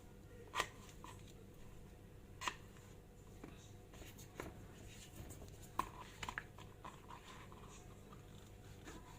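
Quiet room tone with a few scattered light clicks and taps, about five clear ones spread over several seconds.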